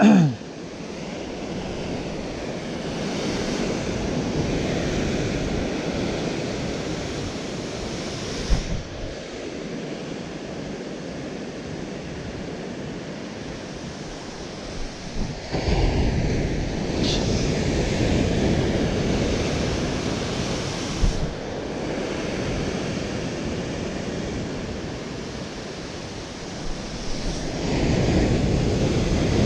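Ocean surf breaking against the rocks at the foot of a sea cliff, a steady wash that swells and ebbs as each set of waves comes in, with three larger surges.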